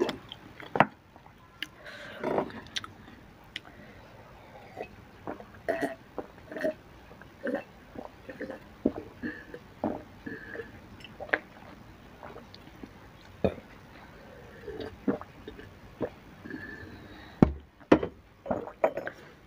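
Close-miked eating sounds: chewing with wet mouth clicks and smacks. About halfway through come gulps as water is drunk from a glass, and a few sharper knocks stand out.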